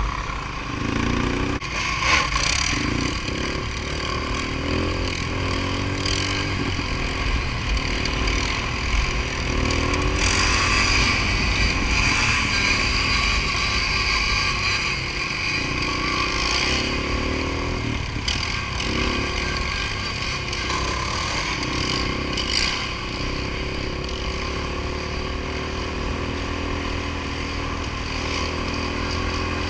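Sport quad ATV engines running on the move, their pitch rising and falling again and again as the throttles are worked, over a steady low rumble.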